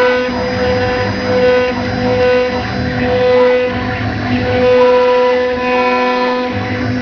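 Background music with long held notes that change every second or so over a soft low pulse.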